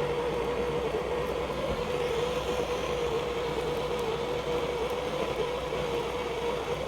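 Blowtorch flame running steadily with a constant hiss and hum, heating a fluxed copper pipe fitting before solder is fed into the joint.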